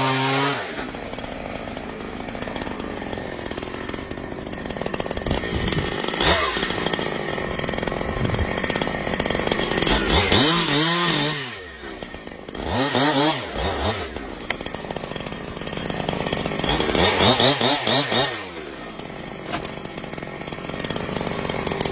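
Chainsaw running at high revs while cutting, dropping back in pitch and revving up again several times, around halfway through and again near the end.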